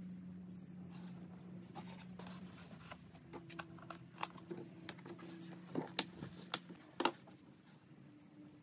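Two-part epoxy being measured out of plastic jugs into a plastic measuring cup: quiet handling, with a few sharp plastic clicks and knocks between about four and seven seconds in as a jug is picked up and uncapped. A low steady hum underneath fades out about seven seconds in.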